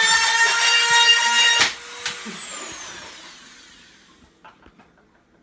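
A small electric power tool motor whining at full speed, then switched off about a second and a half in and winding down with a falling whine that fades away.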